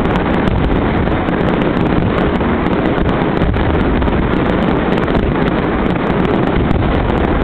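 Fireworks display: a steady, dense rumble of bursts with many short crackles throughout, heavy low-end buffeting on the microphone.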